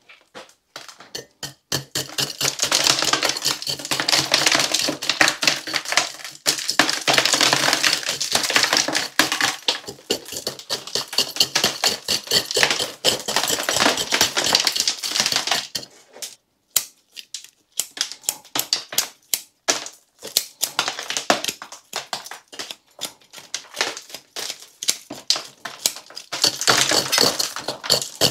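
A root rake scratching through a European hornbeam's bonsai root ball, a rapid run of scratches and ticks of the tines on soil and roots as the compacted root mass is teased apart little by little. It pauses briefly about two thirds of the way through, then carries on.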